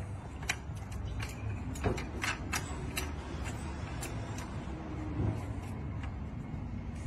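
Scattered light metallic clicks and taps as a band saw blade sharpener's head and a tungsten-carbide blade are handled and adjusted, with the grinder not running, over a steady low rumble.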